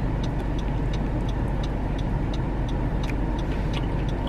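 Steady low rumble of a car running, heard from inside the cabin, with faint scattered clicks over it.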